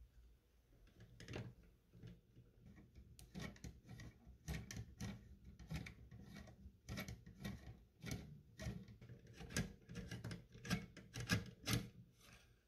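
M10 steel cleaning rod in an M1 Garand's bore being turned by its handle at the muzzle to unscrew it from the patch holder in the chamber. The sound is an irregular run of faint short scrapes and clicks of metal on metal, denser after the first few seconds.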